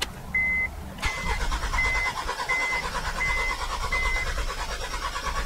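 Starter motor cranking a six-cylinder car engine that is kept from firing, during a relative compression test, with an even pulsing rhythm that starts suddenly about a second in. The even rhythm goes with compression being equal across all six cylinders. A short electronic beep repeats a little faster than once a second throughout.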